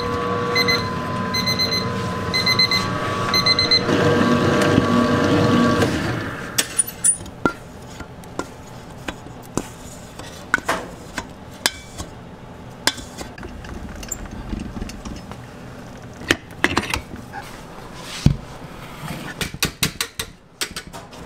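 A stand mixer runs with a steady hum while an electronic beeper sounds in quick repeated beeps, about twice a second. The beeping stops about 4 seconds in and the mixer stops about 6 seconds in. After that come scattered clinks and knocks of a whisk and spatula against a steel mixing bowl.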